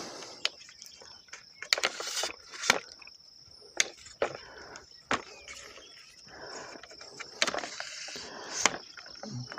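Aluminum tripod legs being extended, their flip-lock leg clamps snapping open and shut: a string of sharp clicks and knocks at irregular intervals, with some handling rustle between them.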